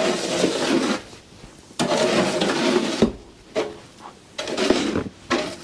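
Snow being cleared away in about four separate scraping strokes, each a second or so long.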